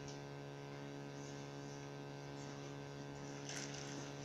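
Steady electrical mains hum with many even overtones. A brief rustle comes near the end.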